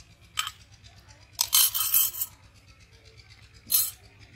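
Metal spoon scraping yogurt out of a small clay bowl, clinking against the earthenware: a short scrape, a longer one about a second and a half in, and another short one near the end.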